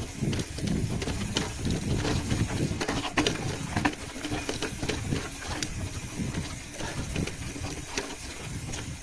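Wind buffeting the microphone during a ride, a steady low rumble with road noise. Many small clicks and rattles are scattered through it.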